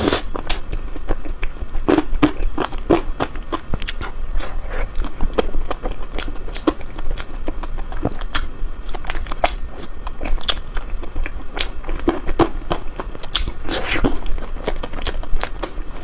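Close-up biting and chewing of ice cream: a dense run of irregular sharp crunches and wet clicks, with louder bites right at the start and again about two seconds before the end.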